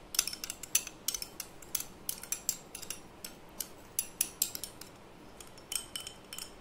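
A metal spoon clinks and scrapes against a glass bowl while stirring a wet curd mixture: rapid, irregular clinks, with a short lull a little after the middle.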